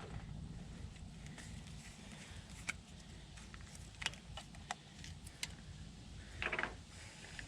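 New engine oil poured from a jug into a funnel: a few light plastic clicks and a short gurgling burst about six and a half seconds in, over a low steady rumble.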